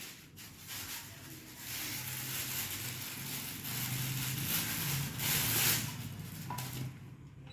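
Rustling and crinkling of packaging being handled, in swelling surges, loudest about two and five seconds in.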